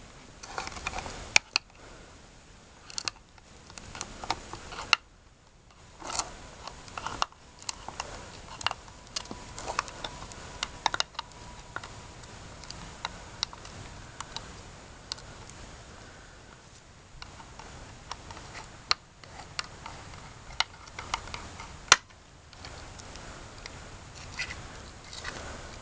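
Hand can opener cutting around the lid of a metal can, making a string of irregular sharp clicks and ticks as it is worked along the rim.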